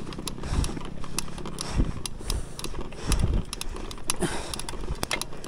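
Mountain bike ridden up a climb: scattered sharp clicks and rattles from the bike and trail, with about four dull low thumps a second or so apart.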